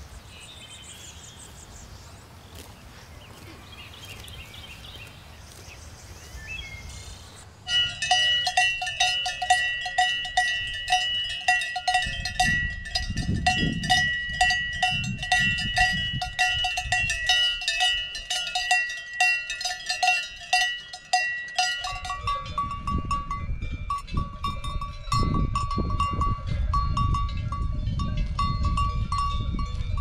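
Cowbells on grazing cows clanking in quick, irregular strokes, a few a second, starting about a quarter of the way in. Past the middle a different, higher-pitched bell takes over. Faint bird chirps come before the bells.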